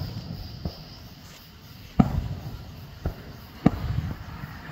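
Aerial firework shells bursting: four booms, the loudest about two seconds in and another about a second and a half later, each followed by a short low rumble.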